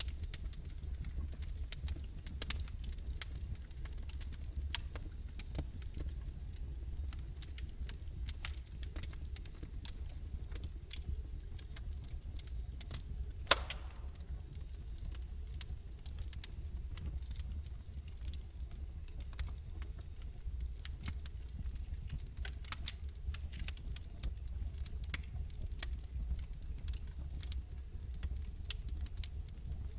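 Log fire in a fireplace crackling, with scattered small pops over a low steady rumble. One much louder, sharp pop comes about halfway through.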